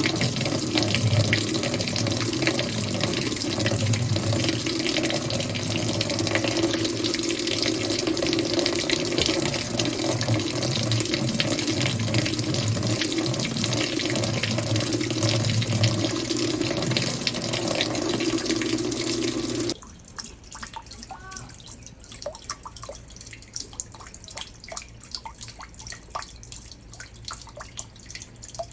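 Water running at full flow with a low hum under it, cutting off abruptly about twenty seconds in, followed by faint drips.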